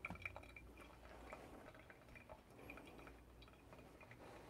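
Near silence: room tone with a few faint small ticks.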